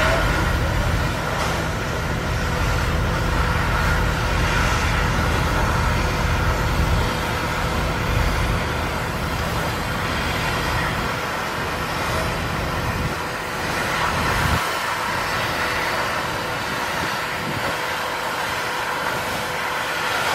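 Steady outdoor machinery-like background noise: a low engine-like rumble with a constant hum over it. The low rumble drops away about two-thirds of the way through, leaving the hum and a steady hiss.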